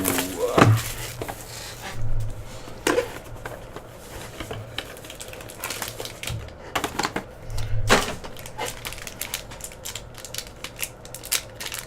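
A sealed sports-card hobby box being opened and its packs handled: plastic wrap crinkling, cardboard and foil packs rustling, with scattered sharp clicks and a few louder snaps.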